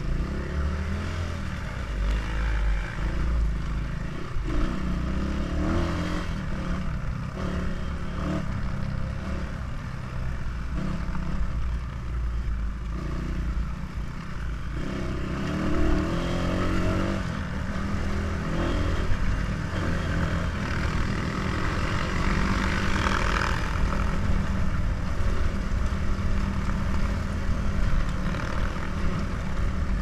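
Dirt bike engine running under way from the rider's own bike, its note rising and falling as the throttle is worked, with a sharper rev about sixteen seconds in.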